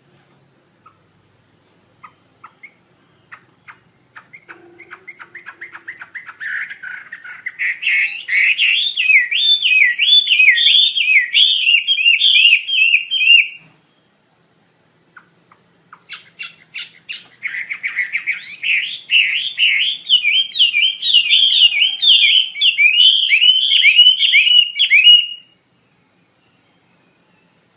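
Chinese hwamei in full song: two long bouts of rapid, loud whistled phrases that rise and fall in pitch. Each bout starts with scattered single notes and builds into dense phrases, with a pause of about two seconds between them.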